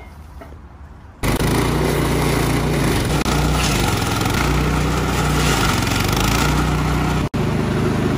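Small gasoline engine of a walk-behind stump grinder running at high speed while its cutting wheel grinds into a tree stump. It comes in suddenly about a second in, and its pitch sags and recovers a few times. It drops out for an instant near the end.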